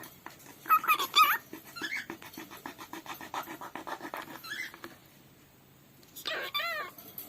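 Pet cockatiel chirping: short, bending chirps about a second in and a wavering call near the end, with a quick run of soft clicks in between.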